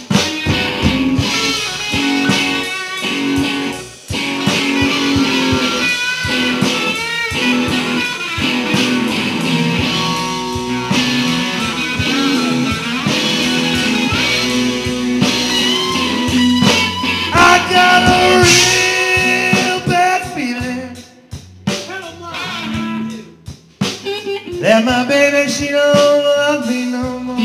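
A live blues-rock band playing: electric guitars with bending lead lines over drums and bass. The band drops to a quieter, sparser stretch about three quarters of the way through, then comes back in full.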